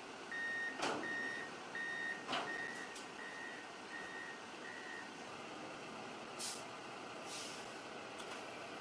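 A vehicle's reversing alarm beeping at an even pace, a bit faster than once a second, stopping about five seconds in. Two sharp knocks come in the first few seconds, and two short hisses follow later.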